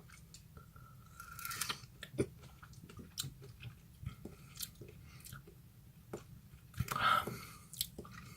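A person biting into and chewing a raw lemon quarter: irregular wet mouth clicks and squelches, with a louder burst about seven seconds in.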